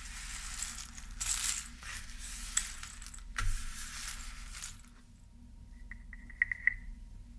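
Close-up scratching and rubbing on an object, a dense hiss with scattered clicks, for about five seconds. After a short pause, a small hard object clatters briefly with a clear ringing tone, like a coin settling on a hard surface.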